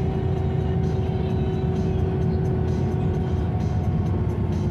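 Karosa C955 Récréo bus running at steady speed, heard from inside the passenger cabin: a low, even engine and road drone with a thin steady whine.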